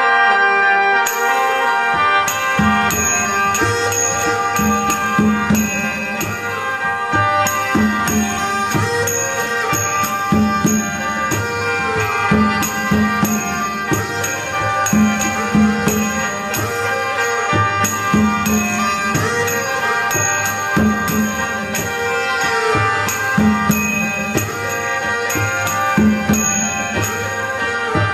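Background music: an instrumental piece with a steady drum beat under sustained melody lines that glide in pitch.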